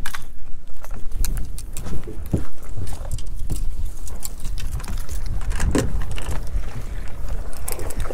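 Irregular knocks and rattles on a fishing boat over a steady low rumble.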